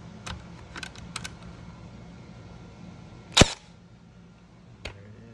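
Milwaukee M18 18-gauge narrow crown cordless stapler firing a staple: one sharp, loud crack about three and a half seconds in. A few light clicks come before it and a fainter click near the end.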